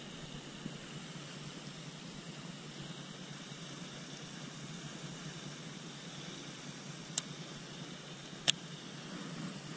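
Steady low outdoor background rumble, with two sharp clicks near the end about a second apart, the second the louder, from handling a Daiwa Tatula CT baitcasting reel.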